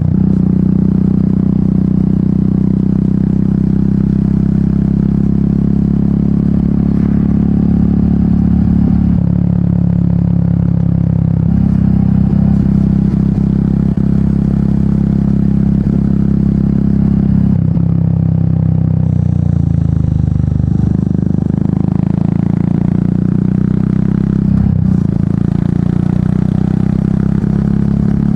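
Royal Enfield Meteor 350's 349 cc single-cylinder engine running through an aftermarket exhaust while riding, the note stepping down and back up several times as the revs change.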